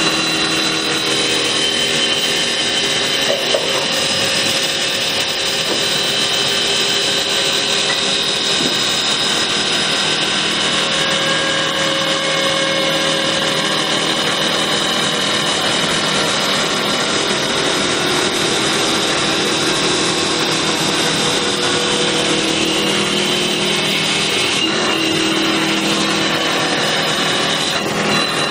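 Tianjiao CNC wood lathe turning a wooden sofa leg: a steady motor whine with several held tones under the continuous rasping of the cutter shaving the spinning wood.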